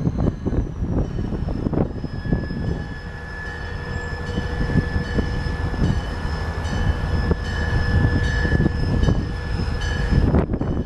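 A train rolling through a station: a loud, steady rumble with clattering of wheels over the rails, and a steady high squeal from the wheels held throughout.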